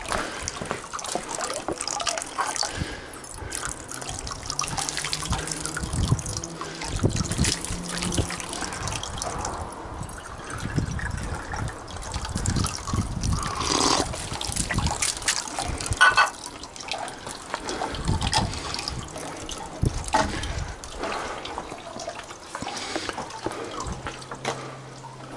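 Water trickling and splashing into the basin of a shrine's purification fountain (temizuya), uneven with many small splashes and drips.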